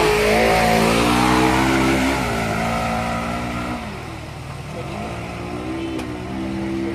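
An off-road vehicle's engine revving hard as it ploughs through water-filled mud ruts. The pitch climbs and drops several times as the throttle is worked, with a hiss of water and mud spray in the first couple of seconds. The engine grows fainter and settles to a steadier note near the end.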